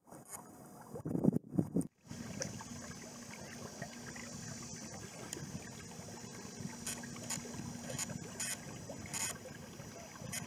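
Water sounds of a canoe being paddled on a lake: paddle strokes and water trickling off the blade. There are a couple of low thumps in the first two seconds, a brief dropout, and a run of short high ticks near the end.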